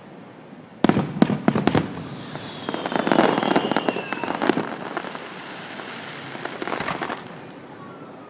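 Fireworks going off: a quick string of sharp bangs about a second in, then dense crackling with a whistle that falls slightly in pitch, and a few scattered pops near the end.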